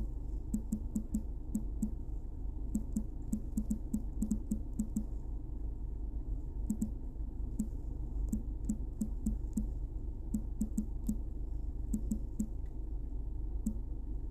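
Fingertips tapping on a smartphone touchscreen held close to the microphone: irregular quick clusters of light taps with short pauses, over a low steady hum.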